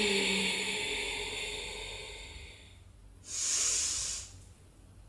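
A person breathing audibly through a held seated forward bend: a long, slowly fading breath, then a shorter, sharper hissing breath about three seconds in.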